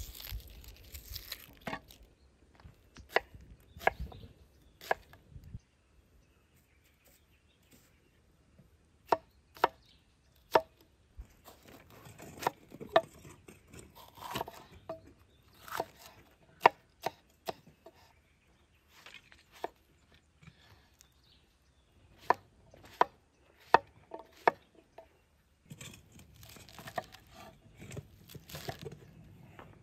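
Chef's knife cutting red onion, red bell pepper and leafy greens on a wooden cutting board: sharp single knocks of the blade on the board at uneven intervals. Near the end there is a softer rustle of the greens being handled and chopped.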